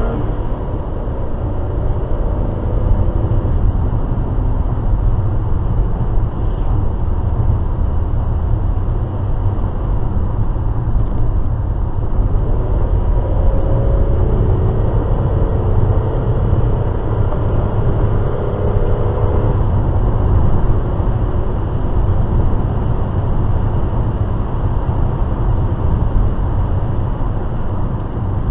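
Motor vehicle driving on the road, heard from inside: a steady low rumble of engine and road noise.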